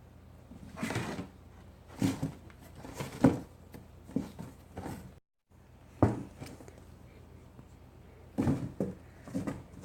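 Cats scuffling over a cardboard box: irregular knocks, thumps and scrapes against the cardboard in short flurries, about eight of them.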